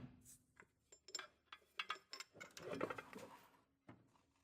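Faint, scattered metallic clinks and light knocks of metal parts and tools being shifted during car reassembly. The clinks are irregular, with a short busier patch around the middle.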